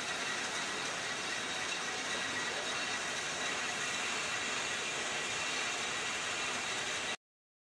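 Steady, even rushing noise with a few faint high whines in it, cutting off suddenly about seven seconds in.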